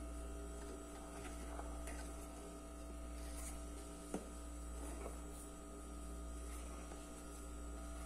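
Faint rustling of a wooden spoon stirring dry flour in a ceramic bowl, with one light knock of the spoon against the bowl about four seconds in. A steady electrical hum runs underneath.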